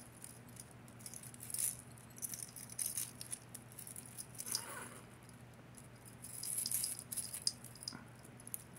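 Tangled costume jewelry, thin metal chains with a gold-tone starfish pendant and beads, jingling and clinking in short spells as fingers work at untangling it.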